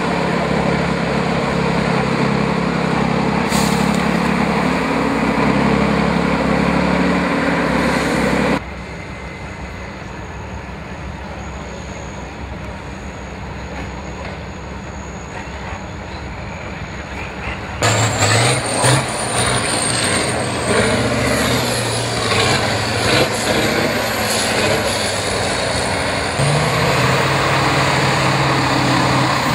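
Heavy Tatra trial trucks' diesel engines running under load as they crawl over rough off-road ground, in three separate takes: loud, then noticeably quieter for several seconds, then loud again. In the last take a high whine wavers above the engine.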